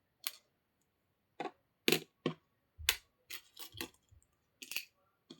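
Small hard objects being picked up and set down on a hard surface: about ten irregular light clicks and taps.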